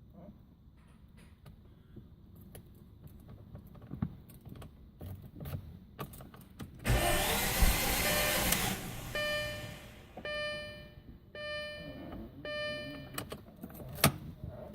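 A 2006 Audi A4 2.0 turbo failing to start: about seven seconds in there is a short, loud whir of under two seconds, followed by four buzzing tones about a second apart and a sharp click near the end. The owner can't tell whether the sound is the starter or something else.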